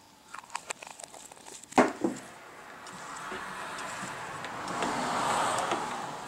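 Small plastic clicks and a couple of sharp knocks as a dye bottle is capped and handled, then water swishing and sloshing in a plastic bucket as red anodizing dye is stirred into the bath with an immersion heater wand, growing louder toward the end.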